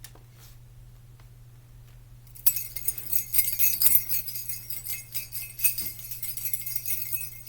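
Small jingle bells shaken rapidly in a continuous jingle, a bell sound effect. It starts about two and a half seconds in, after a quiet stretch.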